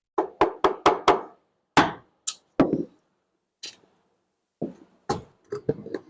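Hammer knocking a piece of wooden framing lumber into place: a quick run of about five knocks, a few more strong ones, then lighter, spaced-out taps.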